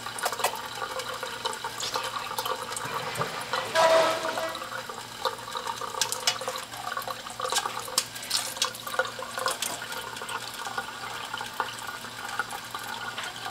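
Thin stream of tap water running from a kitchen faucet into a stainless steel sink, broken by irregular splashes and spatters as a cat paws and bites at the stream, with a louder burst about four seconds in.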